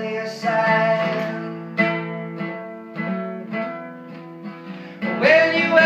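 Acoustic guitar played alone between sung lines, chords struck and left to ring and fade, growing quieter through the middle, then strummed much louder a little after five seconds in.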